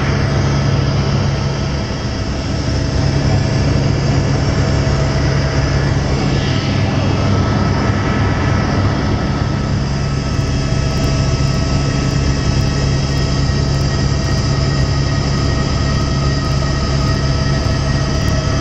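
Helicopter's engine and main rotor running steadily in cruising flight, heard from inside the cabin as a loud, constant hum with a few steady tones over it.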